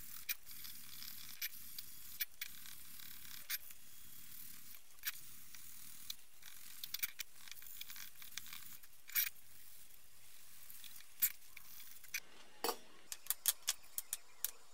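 Blue abrasive sanding sponge rubbing over the brass body of a Tilley storm lamp: a steady scratchy hiss with scattered light ticks. From about twelve seconds in it gives way to a quick run of sharp clicks as small brass parts are set down on the wooden bench.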